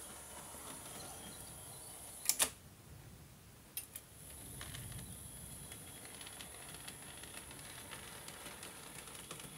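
Hornby OO-gauge Peckett W4 model shunting locomotive running with a faint high motor whine and light rumble of wheels on the track. A sharp double click comes a little after two seconds in and two lighter clicks near four seconds as it buffers up and couples to a hopper wagon. The whine starts again about a second later as it pulls the wagon away.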